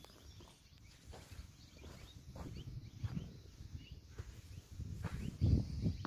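Footsteps on loose, lumpy earth fill: irregular low thuds and scuffs of shoes on soil clods, growing louder over the last second or so.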